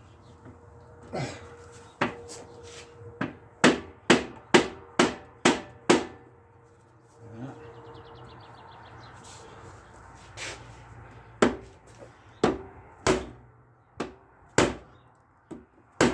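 Hammer strikes during a lawn mower front axle repair: a quick run of about seven sharp blows, a pause, then about six more spaced about half a second to a second apart.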